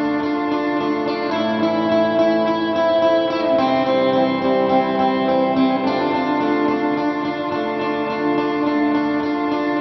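Background music led by a plucked guitar, with sustained chords that change every second or two.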